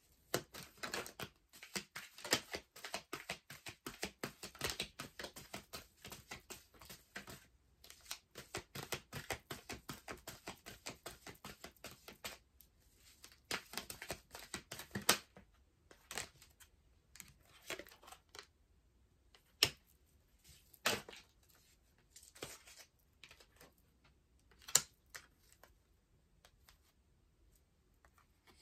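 A tarot deck being shuffled by hand: a fast run of soft card flicks and clicks for about twelve seconds, then a short burst and scattered single flicks and taps of the cards.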